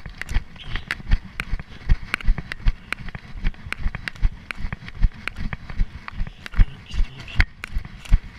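Running footsteps on dry leaf litter and forest floor, thudding at a steady stride of about two to three steps a second.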